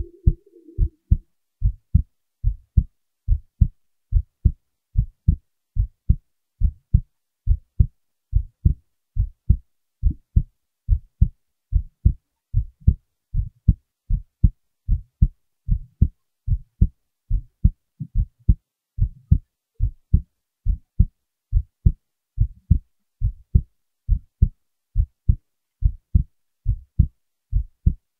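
A recorded heartbeat: a steady run of low, dull lub-dub beats, each beat a pair of thumps, coming a little faster than one a second.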